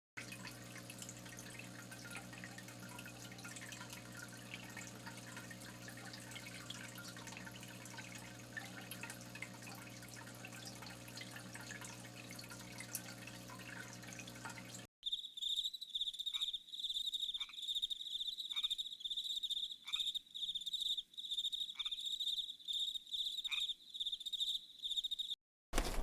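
For about fifteen seconds a low steady hum with faint crackling; then, after an abrupt cut, a loud, steady, high-pitched insect chirring, with six short falling calls over it.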